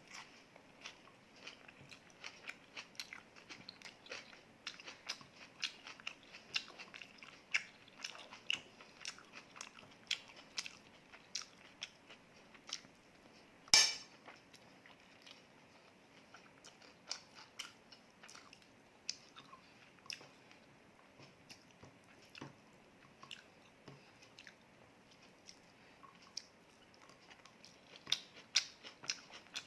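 Close-miked chewing of a mouthful of rice and prawn curry: many small, irregular mouth clicks, with one sharp click about 14 seconds in and denser clicks near the end.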